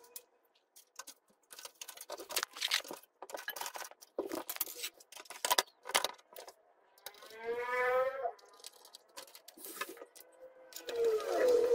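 Parts of a steel computer case being handled: a string of small metal clicks and knocks as a hard drive is fitted into the sheet-metal drive cage. A short squealing scrape comes about seven seconds in and another near the end, as metal rubs on metal.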